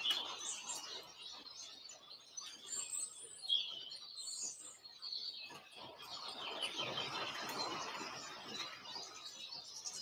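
Small garden birds chirping and twittering, busier and louder from about six seconds in as a flock of goldfinches comes in to the seed feeders.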